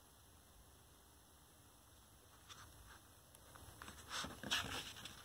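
Paper pages of a picture book being handled and turned: quiet at first, then light clicks and a rustle of paper that grows louder over the last couple of seconds.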